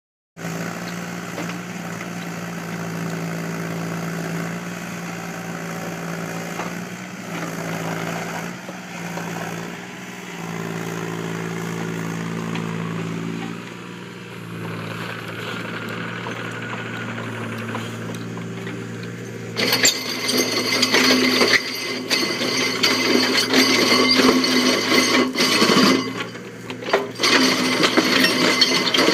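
A 3.5-tonne Takeuchi mini excavator's diesel engine running, its pitch shifting a little as the hydraulics work. About twenty seconds in, a Remu EL 20-85 screening bucket's separator rotors start turning, and a louder, dense rattling and grinding of soil and stones being sifted through the bucket comes in over the engine.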